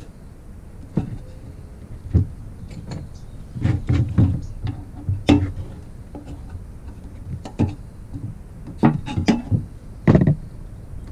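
Irregular knocks and clunks of tools and metal engine parts being handled, about a dozen of them at uneven intervals, the loudest about five and ten seconds in.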